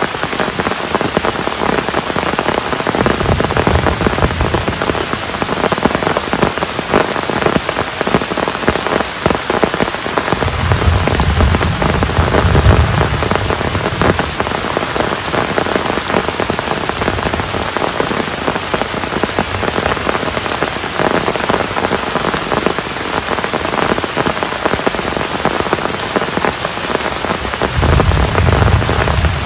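Heavy rain pouring steadily, pattering on the tent, leaves and forest floor. A low rumble swells up a few times underneath it.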